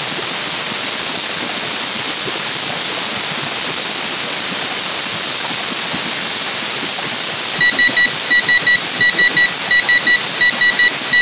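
Electronic buzzer of a homemade pressure-cooker whistle counter beeping in quick pairs, starting about three-quarters of the way in: the alarm that the gas has been switched off. Under it runs a steady loud hiss.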